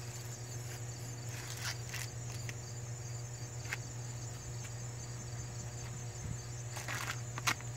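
Insects chirring steadily in a high, pulsing chorus, with a few short rustling tears of a corn husk being peeled by hand, the loudest near the end.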